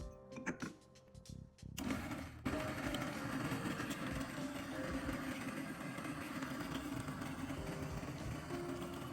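A steady mechanical whirring noise starts about two seconds in and runs on evenly, with soft background music. Before it there are a few light clicks.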